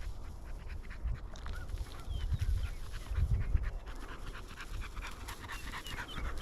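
Walking through dry field cover: irregular crackling and rustling steps, with low wind rumble on the microphone. A bird dog can be heard panting.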